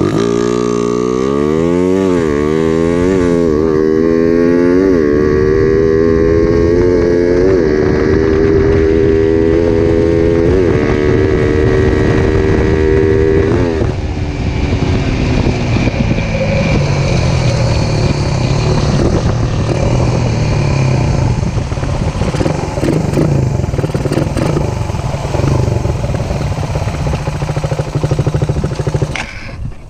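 Suzuki Raider 150 single-cylinder four-stroke engine, breathing through a Koso EVO 30mm flat-slide carburettor, accelerating hard through the gears. Its pitch climbs and drops back at each upshift, about five times. About fourteen seconds in the throttle closes, and the engine runs down on engine braking, its pitch falling and then holding lower. This is a road test of the new carb's jetting and air-screw setting.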